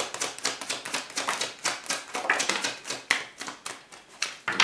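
A tarot deck being shuffled and handled by hand: a rapid run of sharp card clicks, several a second.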